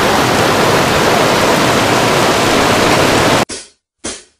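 Heavy rain on a parked floatplane: a loud, steady rushing that cuts off abruptly near the end, followed by two brief fading sounds.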